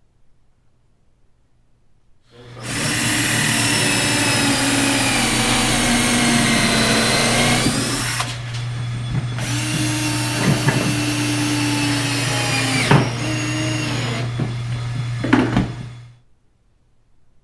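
Loud electric power planer starting about two seconds in and running for about fourteen seconds, planing down the side of a wooden canoe deck. Its whine shifts in pitch as the load changes, with a few sharp ticks near the end before it cuts off.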